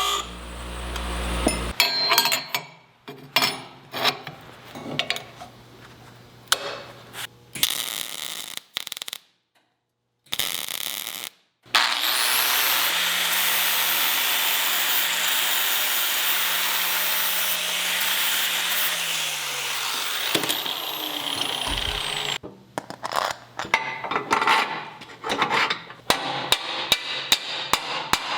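Steel fabrication in a shop: scattered knocks and clanks, then a power tool spins up, runs loudly for about ten seconds and winds down, followed by a run of sharp taps and knocks.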